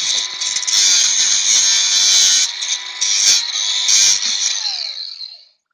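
Handheld power grinder running against metal, a loud rasping hiss over a steady motor whine, smoothing out a cut edge; the motor winds down with a falling pitch about five seconds in.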